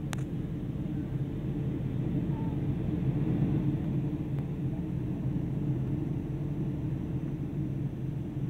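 Steady low drone of a Boeing 757-200's engines and airflow heard inside the passenger cabin in flight, with a brief click just after the start.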